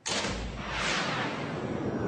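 Cartoon sound effect: a sudden loud rush of noise that cuts in at once, with a swoosh falling in pitch over about the first second, mixed with background music.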